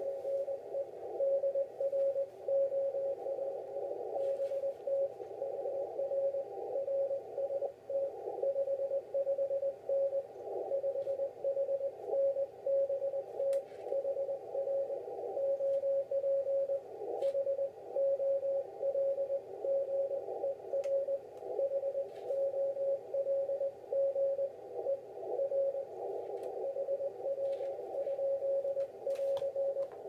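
Morse code (CW) from the other station coming through a ham radio transceiver: a single tone of about 600 Hz keyed in a steady run of dots and dashes, over a band of hiss around the tone.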